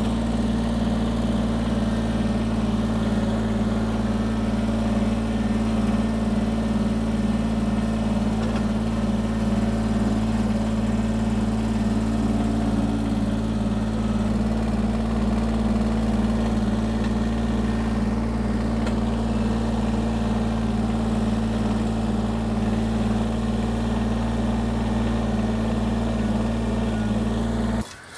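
Kubota BX compact tractor's diesel engine running steadily at a constant speed, stopping abruptly near the end.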